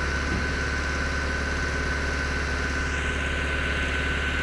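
Finlay 683T tracked screener running: its Deutz turbo diesel engine and vibrating screen box make a steady mechanical drone with a low rumble, and a steady high whine sits over it.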